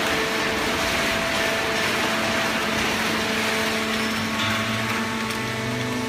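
Industrial cardboard baling line running: steady machine noise with several steady hums, and a deeper hum joining about four and a half seconds in.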